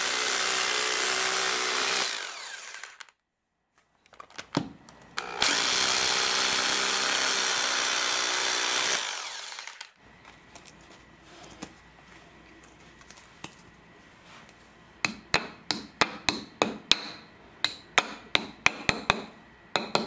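Hammer drill boring into concrete through floor tile in two runs, the first stopping about two and a half seconds in and the second running from about five to nine and a half seconds. Near the end, a quick series of sharp taps, about two to three a second.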